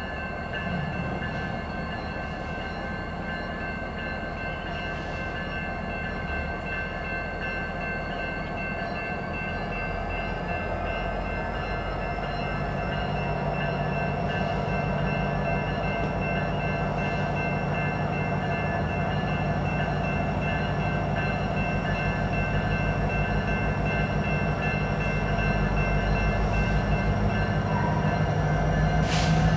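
EMD SD70M-2 diesel-electric locomotive of a CN freight train approaching at walking pace, its engine running and growing steadily louder as it draws near. Steady high-pitched tones ring over the engine throughout.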